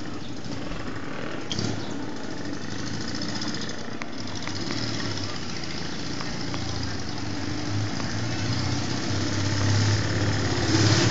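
Honda 305 motorcycle's parallel-twin four-stroke engine running as the bike approaches, growing louder over the last few seconds.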